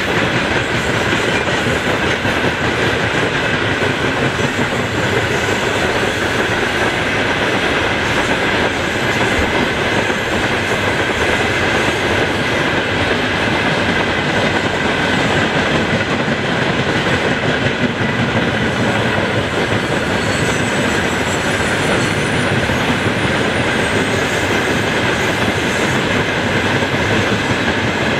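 Freight train of open-top gondola wagons rolling past on a curve: a steady, loud rolling and rattling of steel wheels on the rails, with a steady high squeal running over it.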